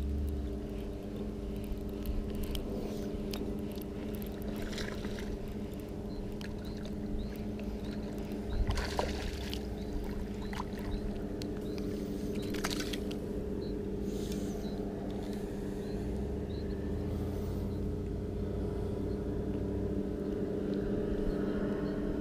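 A baitcasting reel being cranked as a small largemouth bass is fought in to the bank, with a few short noisy bursts about nine and thirteen seconds in. Under it runs a steady low hum like a distant motor.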